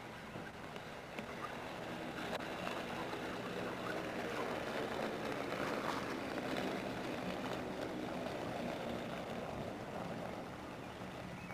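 Inline skate wheels rolling on an asphalt street, a steady rolling noise that grows louder as the skater passes close, about halfway through, and eases off near the end.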